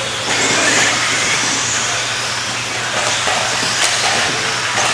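Radio-controlled off-road race cars running on a dirt track: a steady high hiss of motors and tyres.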